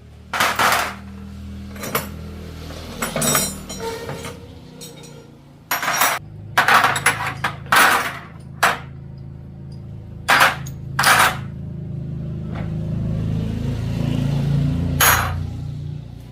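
Metal tools clanking and knocking on metal parts, a dozen or so sharp strikes at uneven intervals, over a steady low hum that swells near the end and cuts off suddenly.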